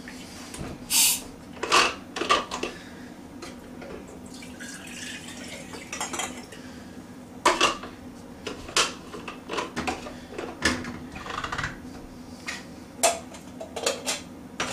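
Clicks, knocks and clatter of a small steam espresso maker's parts being handled and fitted back together, with some water sloshing.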